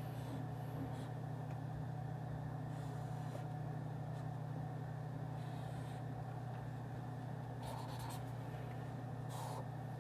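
Steady low room hum with faint scratches of a pen writing on paper a few times, about three seconds in, midway and twice near the end.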